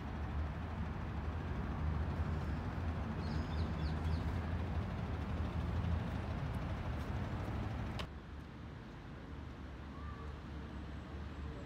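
Outdoor city ambience: a steady low rumble of distant traffic, with a faint bird chirp. About eight seconds in it cuts abruptly to a quieter, softer background.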